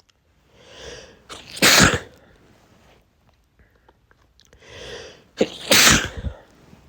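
A man sneezing twice from a pollen allergy, each sneeze preceded by a drawn-in breath and ending in a loud sudden burst, about four seconds apart.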